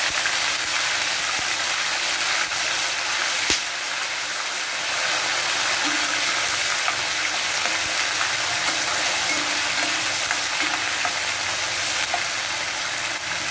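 Ginger-garlic paste and whole spices sizzling in plenty of hot oil in a stainless steel pan, a steady frying hiss as a spatula stirs them. One sharp knock about three and a half seconds in.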